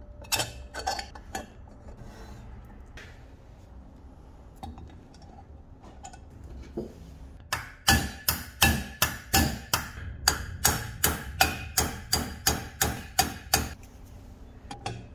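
A few light metal clinks as a steel pin is fitted through the antique clothes iron's cast body, then a steady run of sharp hammer blows, about three a second, peening over the steel rivet at the hinge.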